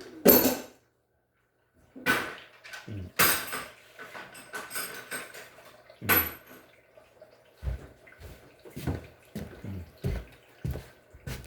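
A series of separate clanks and knocks around an LG washer, with faint water running into it, after a sharp clack at the start and a second of silence.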